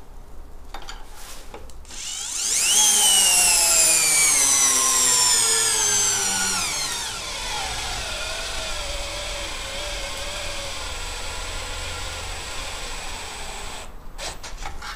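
Bosch GSR 10,8 V-EC brushless cordless drill driver spinning up about two seconds in, driving a 10 × 200 mm lag screw into timber through a torque-measuring adapter. Its whine falls steadily in pitch as the screw loads the motor, then runs slow and steady under heavy load before stopping near the end. There are a few clicks before the start and after the stop.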